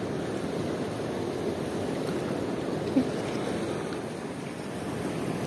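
Turbulent river water rushing and churning steadily, with one brief thump about three seconds in.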